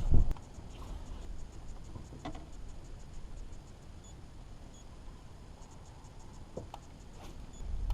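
Wind buffeting the microphone in a low rumble, strong right at the start and rising again near the end, with a quieter stretch between holding a few faint clicks.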